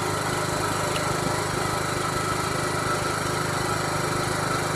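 A small engine running steadily in the background, without change in speed or level.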